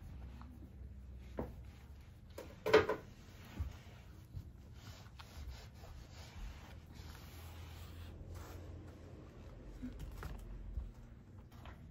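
Cat eating chopped carrot from a ceramic bowl: soft, faint chewing and licking, with a sharp knock about three seconds in and a couple of lighter clicks.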